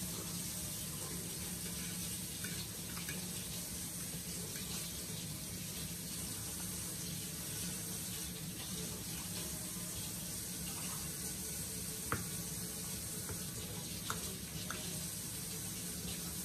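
Steady background hiss with a low hum, with a few faint clicks of a fork against a plate in the last few seconds.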